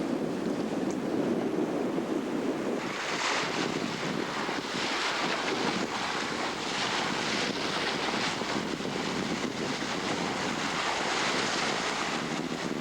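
Wind buffeting the microphone and sea water rushing along the hull of a sailboat under way. A low rumble of wind dominates the first few seconds, then a hissing rush of water that swells and fades with the waves.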